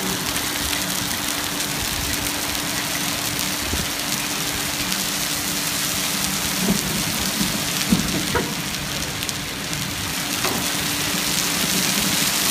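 Heavy rain of a hailstorm pouring onto pavement, a dense steady hiss. A few short knocks come about two-thirds of the way through, and it grows louder near the end.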